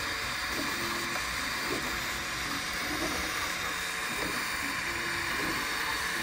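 A steady hiss with faint short tones at a few different pitches, starting and stopping every half second or so.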